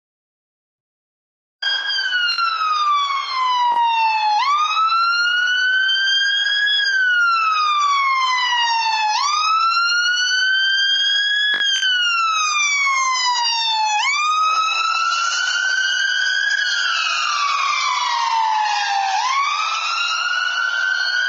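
Ambulance siren wailing, its pitch rising and falling slowly in cycles of about five seconds, starting a second or two in. Traffic noise grows under it in the second half, with a couple of brief clicks.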